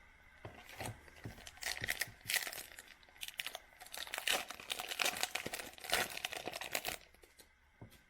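Foil trading-card pack wrapper being torn open and crinkled by hand, a run of crackling from about half a second in that stops near the end.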